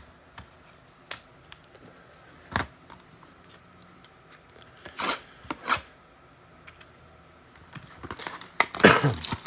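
A sealed trading-card box being opened: a few separate short cutting and tearing sounds of its wrapping, then a busier run of rustling and handling near the end.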